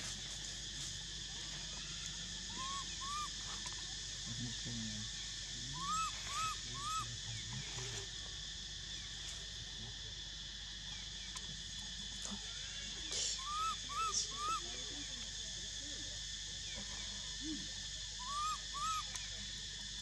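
Steady high drone of forest insects, with short rising-and-falling calls in groups of two or three, four times over.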